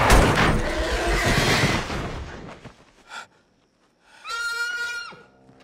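A vehicle striking a horse at speed: a loud crash with a long noisy tail that dies away over about two seconds. After a moment of near silence comes a single held high whinny lasting about a second, the struck horse crying out.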